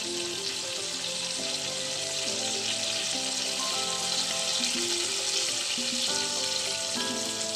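Mustard-oil gravy with phali fish sizzling in a kadai just after the gas is turned off, a steady hiss. Background music with a melody of held notes plays along.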